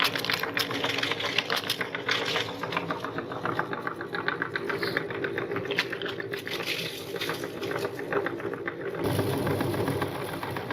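Electric meat grinder running while it crushes crunchy cookies: a steady motor hum under rapid, dense crackling and crunching. The crunching thins out near the end.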